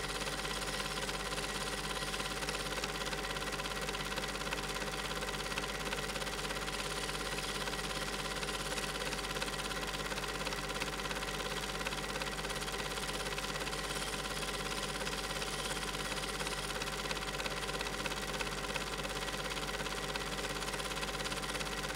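Steady mechanical hum with hiss that never changes, the running noise of a Super 8 film transfer rather than any sound from the scene.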